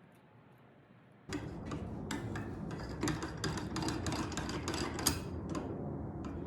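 Irregular clicks and light knocks of the cabinet jack's metal parts being handled and fitted together, starting about a second in over a low steady rumble.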